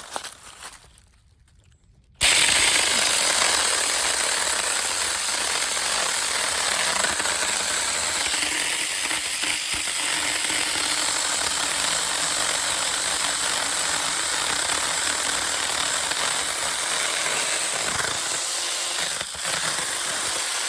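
20-volt Saker mini cordless chainsaw switching on about two seconds in and running steadily as its chain cuts through a tree limb.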